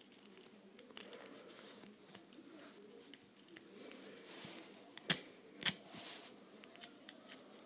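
Quiet handling of a Zippo lighter's metal parts being fitted back together, faint rustling with small clicks, a sharp metal click about five seconds in and a softer one just after.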